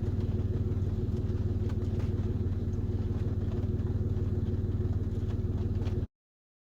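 Car engine running steadily, a low hum heard from inside the cabin, which cuts off abruptly to dead silence about six seconds in.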